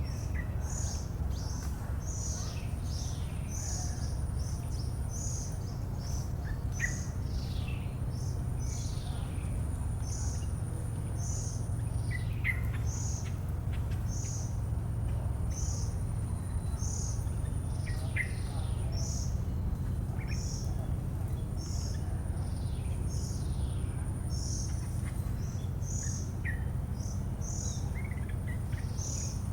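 Birds chirping: short high chirps repeat about once or twice a second, mixed with quick falling whistled notes. Under them runs a steady low rumble, and a thin high tone comes and goes.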